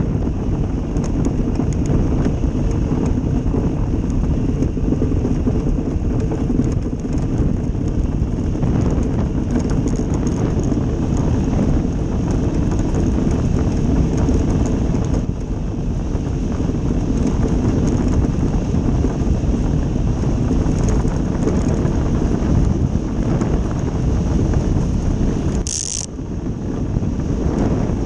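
Ice boat's steel runners rumbling and scraping over lake ice at speed, with wind buffeting the microphone: a steady, loud rushing noise. A brief high hiss cuts in about two seconds before the end.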